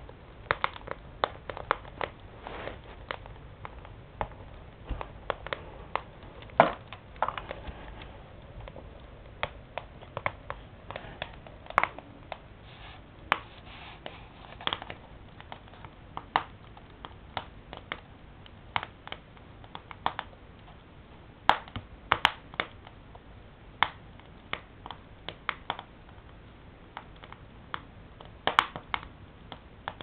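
Split firewood burning in a stove's firebox, crackling with irregular sharp pops over a low steady hiss, a few pops louder than the rest.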